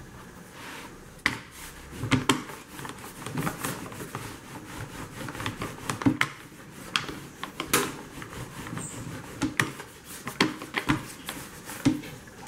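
A rolling pin rolling pizza dough thin on a board, a soft rubbing run through with many irregular knocks and clicks; the dough sheet is also lifted and turned by hand.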